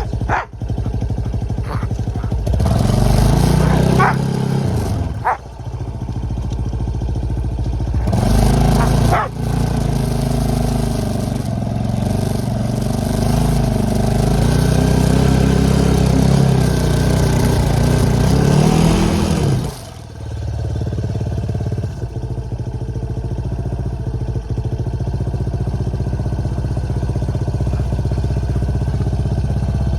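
ATV engine running under throttle. It pulls harder in a short burst a few seconds in, then in a longer pull of about ten seconds with its pitch rising and falling, and drops back to a steadier, lower running for the last third.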